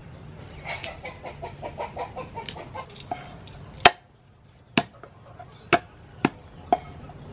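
A hen clucking in a quick run of short calls, then a large knife chopping garlic on a thick round wooden chopping board: about five separate hard strikes roughly a second apart, the first the loudest.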